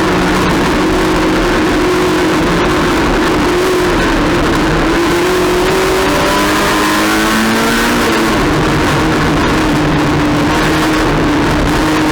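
Racing car engine running hard and continuously, its pitch shifting with throttle and climbing between about six and eight seconds in.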